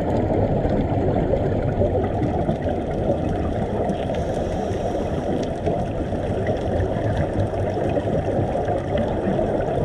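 Steady muffled underwater rumble heard through a dive camera's waterproof housing, with faint scattered crackles.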